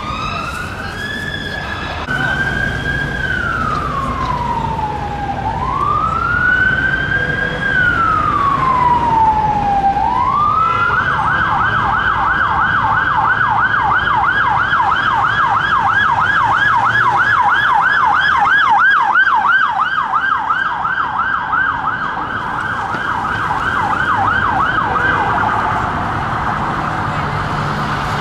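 Electronic siren of a Metropolitan Police Ford Transit Custom van responding on blue lights: a slow wail rising and falling about every four seconds, switching about ten seconds in to a fast yelp, which gives way to a blurred tone near the end. Traffic rumble runs underneath.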